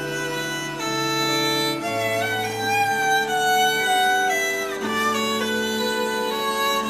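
Violin played with the bow: a slow melody of long held notes that change about once a second, over a line of lower accompanying notes.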